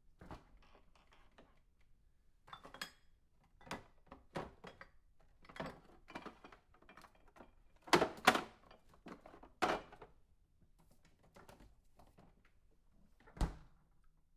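Refrigerator door being handled and shut: a string of clicks, knocks and light clatters, the loudest about eight and ten seconds in, ending with a deeper thump near the end as the door closes.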